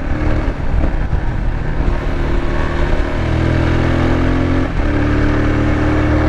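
Voge 300 Rally's single-cylinder engine pulling under load while riding. The engine note wavers at first, settles into a steady pitch about three seconds in, and breaks briefly near the end.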